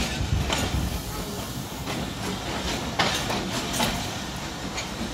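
Passenger train's coaches rolling along a station platform, heard from aboard: a steady rumble and hiss of wheels on rail, with a few sharp clacks over the rail joints near the start and around three seconds in.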